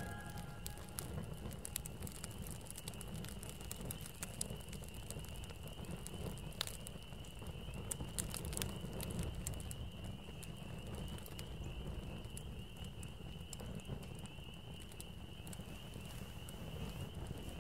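Campfire of dry twigs and brush crackling, with scattered sharp pops over a low rumble. A steady high trill runs along underneath.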